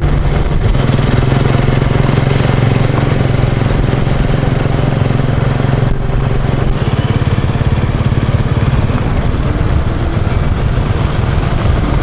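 Vehicle engine running steadily on the move, with wind and road noise rushing over the microphone.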